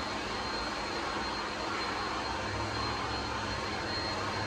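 Handheld hair dryer with a comb attachment running steadily as it is worked through hair: an even rushing blow with a faint high whine.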